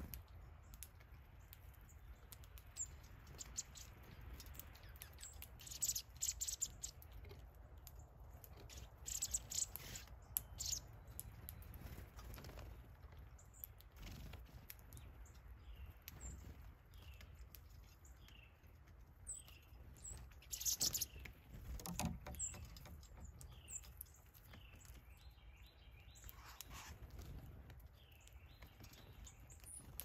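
Small songbirds at a bird feeder chirping, with short down-slurred call notes repeated every second or so, most of them in the second half. A few brief, louder fluttering rustles of wings come as birds fly in, and a low steady rumble lies underneath.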